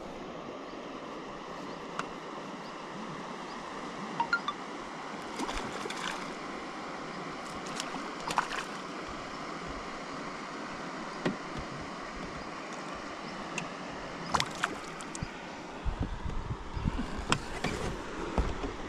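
Steady rush of flowing river water, with scattered small clicks and knocks and a busier run of knocks near the end.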